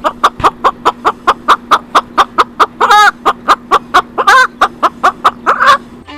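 A bird giving a rapid, even run of short sharp clucking calls, about four a second, with a couple of longer squawks about halfway through, over a steady low hum.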